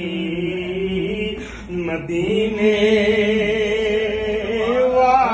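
Men's voices chanting Sufi zikr in long held notes, with a short break about one and a half seconds in and a rise in pitch near the end.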